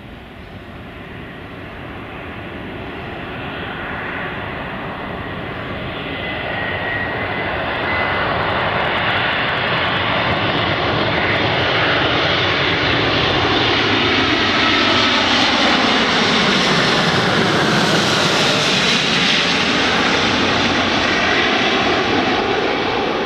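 Airbus A350 jet airliner with Rolls-Royce Trent XWB engines passing low overhead on final approach, landing gear down. The engine noise grows steadily louder and is loudest about three-quarters of the way through. Its whining tones slide downward in pitch as the aircraft goes by.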